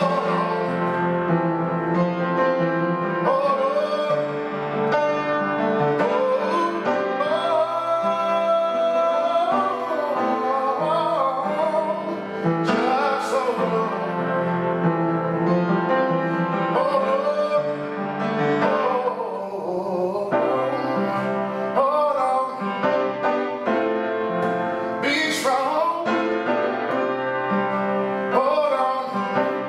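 A man singing a slow song with piano accompaniment.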